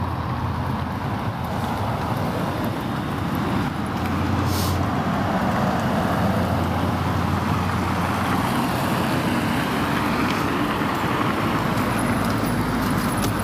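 Road traffic passing close by: steady engine hum and tyre rush from passing vehicles, growing louder about four seconds in.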